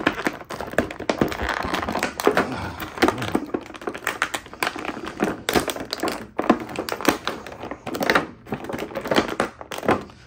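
Clear plastic blister tray crinkling and crackling in the hands as an action figure is worked free of it: a dense, irregular run of clicks and snaps.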